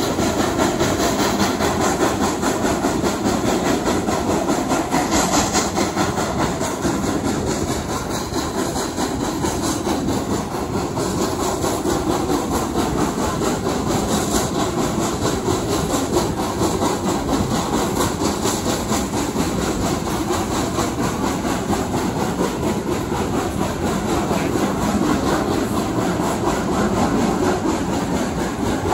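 Steam-hauled passenger train heard from an open carriage window on the move: the locomotive working ahead, with steady wheel-on-rail running noise and the rush of air past the coach.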